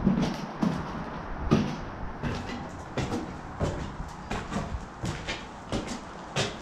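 Footsteps climbing concrete stairs littered with broken brick and grit: irregular scuffs and knocks, about one to two a second.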